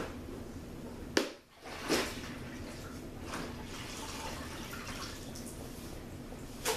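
Water sloshing and dripping from a wet mop and bucket on a tiled floor, with a sharp knock about a second in, another just after, and one more near the end.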